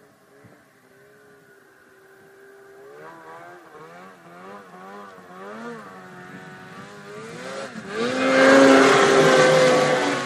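Snowmobile engine revving, its pitch rising and falling. About eight seconds in it gets much louder and holds a high, steady pitch, then drops away at the end.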